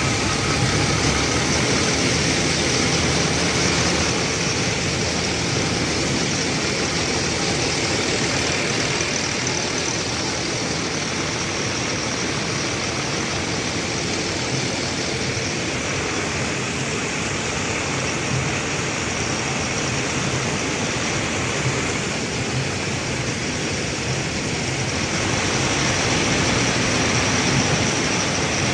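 Combine harvester running steadily at close range while unloading soybeans through its auger spout into a tractor trolley: a dense, even machine noise with no breaks.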